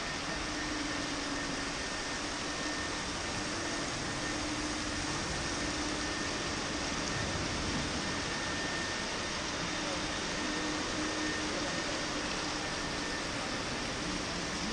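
Steady rush of falling water from a tiered marble ablution fountain (şadırvan), an even hiss with no breaks.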